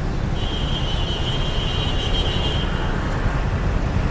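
Steady rumble of road traffic, with a thin, high, steady whine that comes in about half a second in and stops near three seconds.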